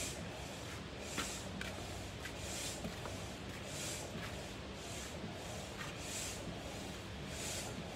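Hand-operated plunger air pump worked up and down, a whoosh of air on each stroke, about one stroke every second and a bit, pumping air into a vinyl inflatable pool.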